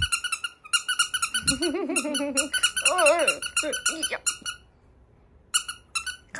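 Squeaky plush dog toy squeezed over and over, giving quick runs of sharp squeaks that pause about four and a half seconds in and return briefly near the end. Under the squeaks in the middle comes a wavering, whine-like voice.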